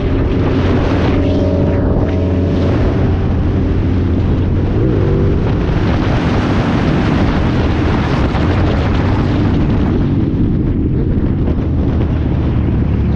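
Motorcycle engine running steadily at highway speed under heavy wind rush on the microphone; the wind is loudest in the middle, and the engines of other motorcycles riding close by mix in.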